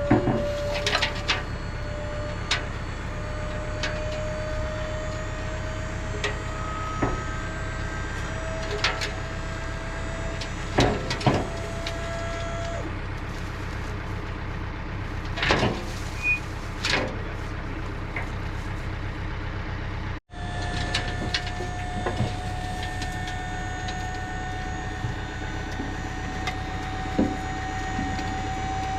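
A vehicle engine running steadily, with a faint whine that slowly rises in pitch, broken by several sharp metallic knocks and clanks as a compost trailer is being opened to unload.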